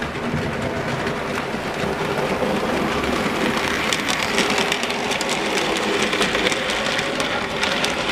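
Model railway steam locomotive and its goods wagons running past on the track: a steady motor hum with the wheels clicking over the rail joints, the clicks coming thicker in the second half as the wagons go by.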